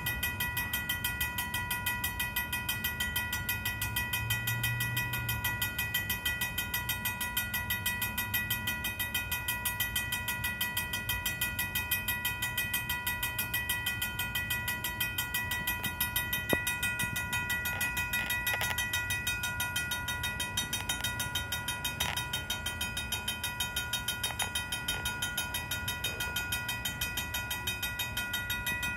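An old mechanical railroad crossing bell ringing fast and steadily in even strokes, over a low rumble of the freight train.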